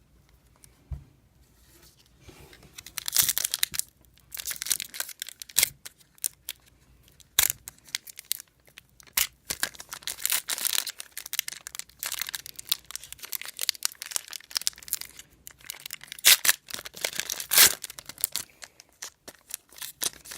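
A trading-card pack wrapper being torn open and crinkled by hand. After a quiet start, irregular crackling and sharp snaps begin about two and a half seconds in and keep going in bursts.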